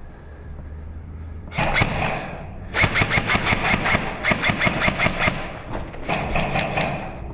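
Airsoft gun firing in rapid bursts of sharp clicks: a short burst about one and a half seconds in, a longer burst from about three to five seconds, and another near the end.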